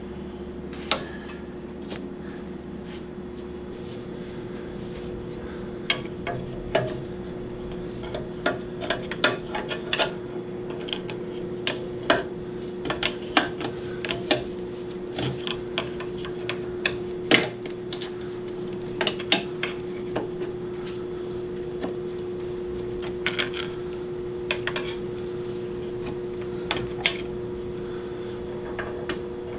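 Hand tools and metal brake-caliper parts clicking and clinking at irregular intervals as a motorcycle front brake caliper is worked off, over a steady hum.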